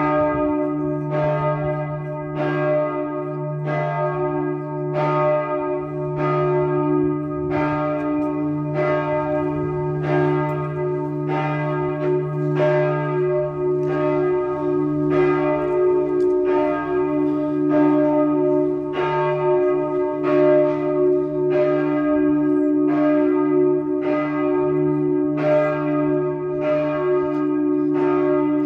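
Church tower bells ringing in a steady rhythm, a stroke about every second and a quarter, each ringing on so that a low hum carries on unbroken between strokes.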